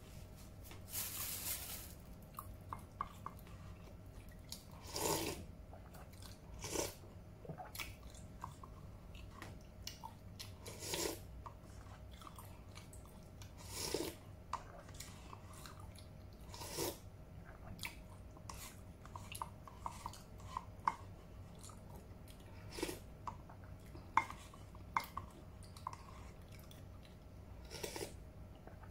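Close-up eating sounds: soft chewing and small mouth clicks, broken about every three seconds by a short slurp of soup from a plastic spoon, eight or so in all.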